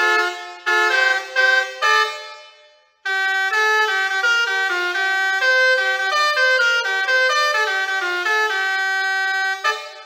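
Basuri 4.0 six-trumpet electric musical air horn playing tunes note by note. One melody ends about two seconds in and dies away. A new melody starts about a second later and plays until near the end, where it stops and rings out.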